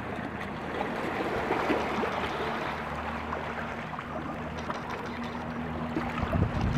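Water washing and trickling among rocks, a steady noisy rush with a faint low hum underneath.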